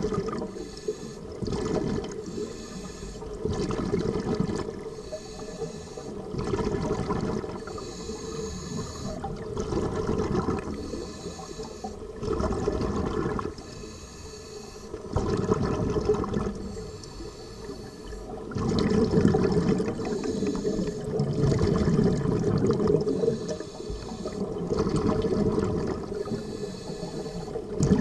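Scuba diver breathing through a regulator underwater: a hiss on each inhale alternating with a rush of exhaled bubbles, in a steady rhythm of a swell every two to three seconds.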